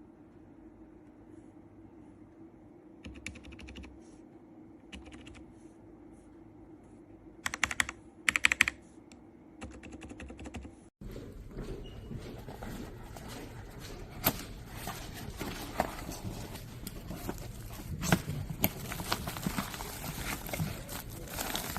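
Typing on a mechanical keyboard fitted with Outemu silent switches: a few scattered keystrokes in the first half, then steady continuous typing after a cut about eleven seconds in.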